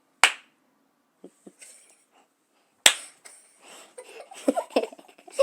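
Two sharp clicks about two and a half seconds apart, then faint mumbling sounds near the end.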